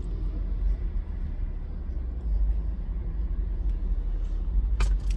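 Low steady rumble of a car idling, heard from inside the cabin, with a couple of sharp clicks near the end.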